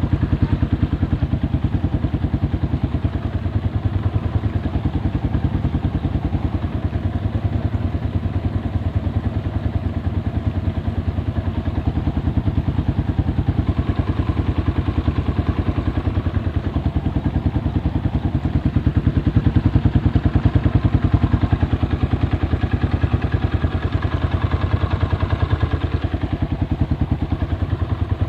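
Vehicle engine running steadily under way, a fast even pulsing throughout with a slight rise in level a little past the middle.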